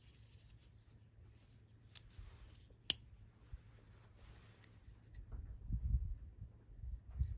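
Folding pocketknives handled in the hands: a sharp click just before three seconds in, as a blade snaps into its lock or shut, with a fainter click before it, light rustling, and low thumps of handling later on.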